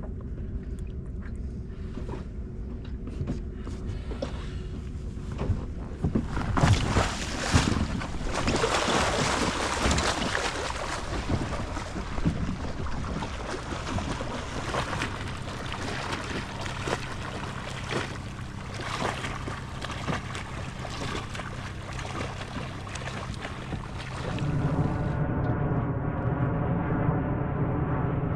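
Small outboard motor on an inflatable dinghy running at low speed, with water splashing and wind on the microphone. From about six seconds in the splashing and wind get louder, and near the end a steadier, duller hum takes over.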